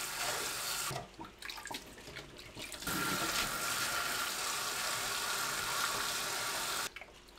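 Cold tap water running into a stainless steel bowl of blanched oyster mushrooms, splashing as hands rinse them. The flow drops away for about two seconds after the first second, comes back steady, and cuts off shortly before the end.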